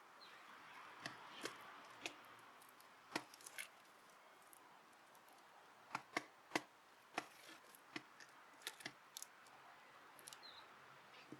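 Sparrows pecking seed at a feeder tray: faint, irregular sharp taps and clicks, some in quick pairs or clusters.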